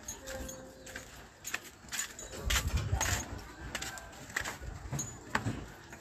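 Footsteps knocking on a wooden plank boardwalk: irregular sharp clacks about one or two a second, with heavier low thumps around the middle.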